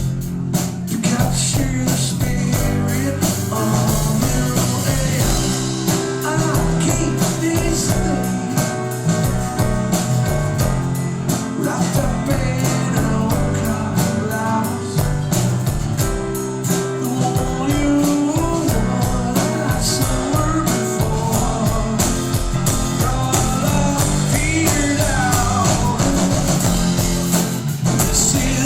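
Rock band playing live: electric guitars, bass and a steady drum beat, with singing.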